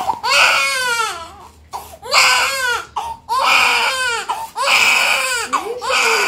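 Newborn baby crying in a series of about five wails, each about a second long, with short breaths between them.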